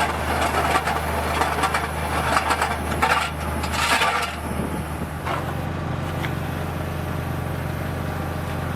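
An engine running steadily at idle, with rough clattering and crunching over the first five seconds or so that then stops, leaving the engine alone.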